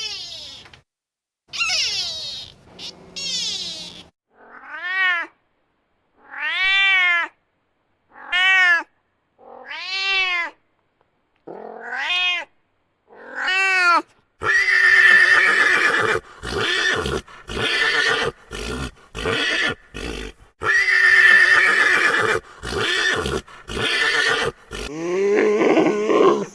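A series of animal calls: about eight short pitched calls that rise and fall, like meows, then from about halfway a run of louder, harsher calls.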